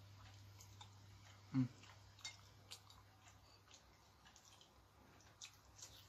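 Faint eating sounds: soft chewing, lip smacks and small mouth clicks from a man eating gelatinous beef foot with his fingers, with a short vocal 'mm' about one and a half seconds in. A steady low electrical hum sits underneath.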